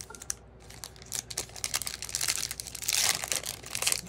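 Foil trading-card pack wrapper crinkling and tearing as it is opened and the cards pulled out: a run of crackles that grows denser and louder toward the end.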